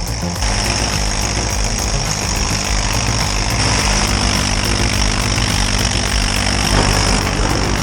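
Engine of heavy forestry machinery running steadily, getting louder about half a second in.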